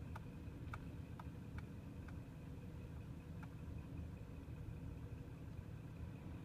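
Heavy diesel engine running steadily as a low rumble, with a few faint short clicks in the first few seconds.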